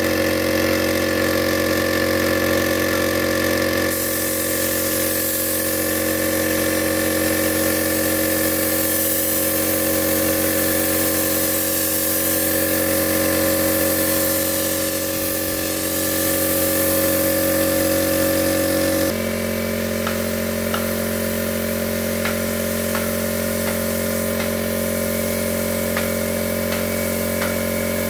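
An engine-driven machine running steadily, its sound changing abruptly twice. Light clicks and taps sound over it in the last third.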